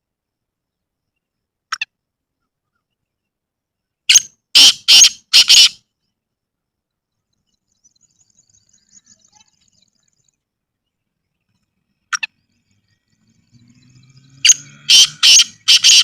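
Black francolin calling: a short sharp note, then a loud phrase of four harsh, grating notes. The call comes twice, about ten seconds apart.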